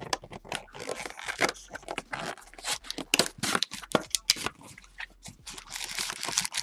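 Cardboard trading-card hobby box being torn open and its flaps pulled back, then the wrapped card packs crinkling and rustling as they are lifted out: a run of irregular tearing, scraping and crinkling noises.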